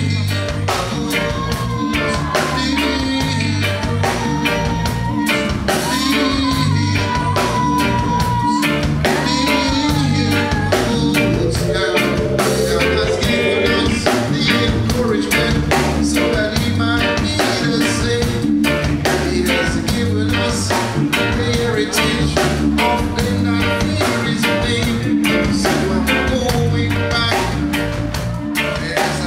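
Live reggae band playing: drum kit, bass guitar, electric guitar and keyboard in a steady beat, with a male singer's voice over the band.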